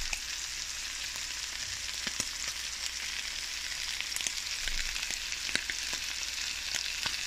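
Calf hearts with hot peppers and herbs sizzling in oil in a hot pan: a steady frying hiss dotted with small pops and crackles.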